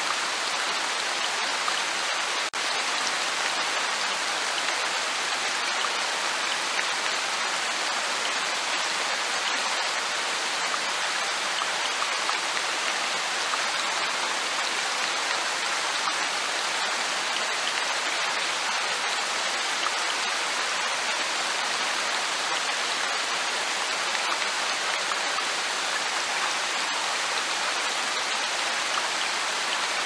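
Steady light rain falling, with scattered ticks of individual drops.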